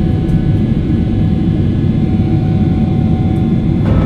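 Steady low roar of an airliner's cabin noise in flight, the sound of the jet engines and the airflow heard from a window seat. Near the end a brighter hiss joins in.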